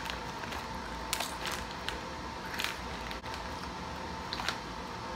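Plastic snack bag crinkling as it is handled, a few short scattered crackles over a faint steady hum.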